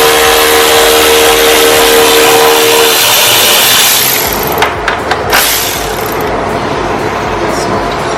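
A power tool running with a steady whine and hiss for about four seconds, then a few knocks.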